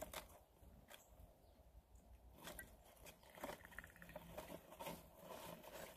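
Faint, irregular clicks and scratches from a squirrel picking at and chewing a ration bar in its wrapper.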